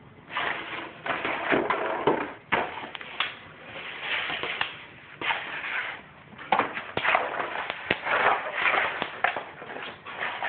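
A husky pawing and nosing at a taped-up cardboard treat box, scraping and knocking it about on a hardwood floor: irregular scuffs and sharp knocks of cardboard, coming in bunches with short pauses between.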